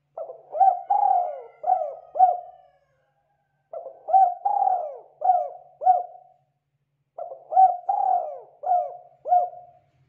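Spotted dove cooing: three phrases of about five coos each, a second or so apart.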